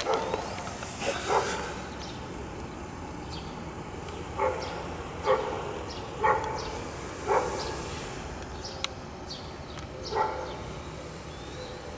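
A dog barking: about seven short, single barks spaced irregularly, some about a second apart and others with gaps of several seconds.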